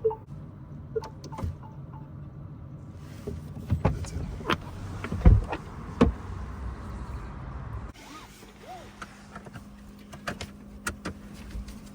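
A series of sharp clicks and knocks inside a car, over a low rumble that gives way to a steady low hum about eight seconds in.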